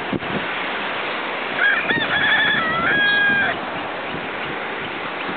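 A rooster crowing once, about a second and a half in: a rising note that breaks into a quick warble and ends on a held note, lasting about two seconds. A steady rushing noise runs behind it.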